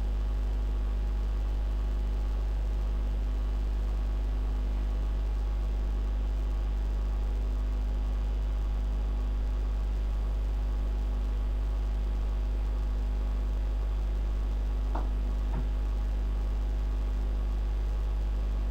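Steady low electrical hum with a buzz of evenly spaced overtones, unchanging throughout, and two faint clicks about three-quarters of the way in.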